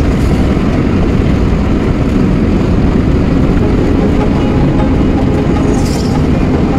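Steady engine and road noise of a Suzuki Every DA64V van driving, heard from inside the cabin, with a short hiss about six seconds in.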